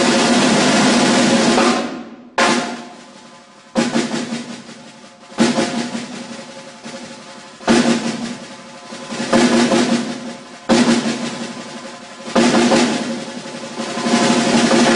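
Snare drum played solo with sticks. A loud sustained roll breaks off about two seconds in, followed by a series of sharp accents, each trailing into a roll that fades away.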